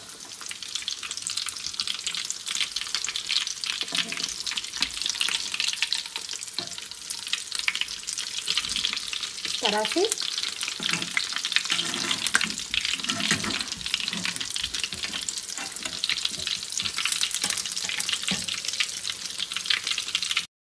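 Breaded chicken cutlets shallow-frying in hot ghee over medium heat: a steady sizzling crackle full of tiny pops. A spatula scrapes in the pan now and then, and the sound cuts out briefly near the end.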